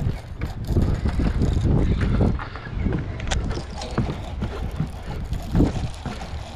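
Low, irregular rumbling and knocking handling noise with a few sharp clicks, as a baitcasting rod and reel are worked against a hooked bass.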